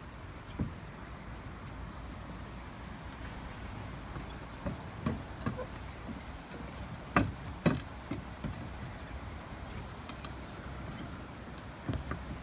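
Roof tiles being handled and set in place: scattered knocks and clacks, the two loudest close together a little past the middle, over a steady low rumble.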